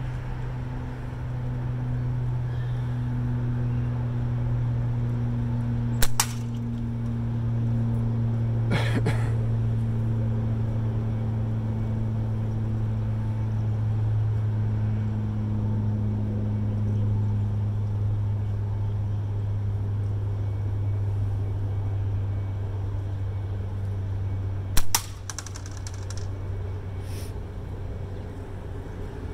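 Slingshot shots with quarter-inch steel balls: sharp cracks of shots striking the hanging can target about 6 and 9 seconds in, and the loudest about 25 seconds in, followed by a few lighter clinks. A steady low, engine-like hum runs underneath.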